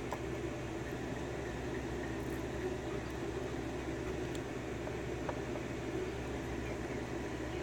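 A steady mechanical hum, with a few faint light clicks from the pin tumblers of a Schlage lock being taken out of its plug and handled.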